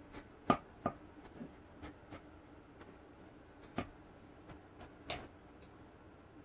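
Plastic pick comb clicking and tapping against a frame loom's warp strings and frame as it beats the weft rows down: a scattering of sharp clicks, the loudest about half a second in. A last click a little after five seconds in, as the comb is set down on the tabletop.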